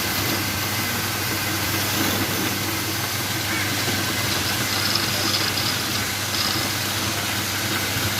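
Electric motor of a woodturning lathe running with a steady hum.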